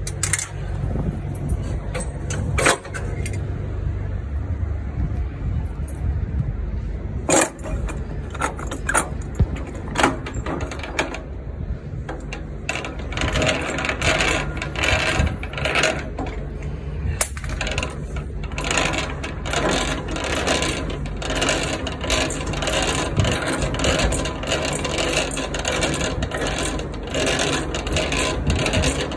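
A cloth rubbing and wiping over a semi-trailer's metal running gear, with light metallic clinks, over a steady low rumble. The rubbing becomes dense and continuous from about halfway in.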